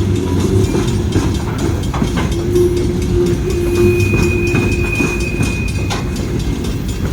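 Freight train rolling past, its wheels clicking over rail joints. A high steady whine from the wheels runs from about two seconds in for roughly four seconds.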